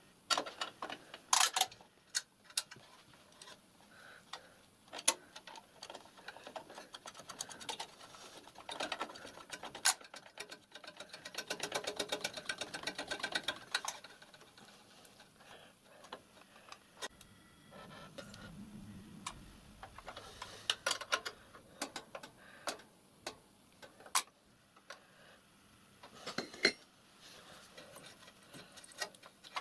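Light clicks and taps of metal parts as a copper chime whistle is handled and offered up under a miniature steam locomotive's footplate. A few seconds of quick rattling ticks come about midway.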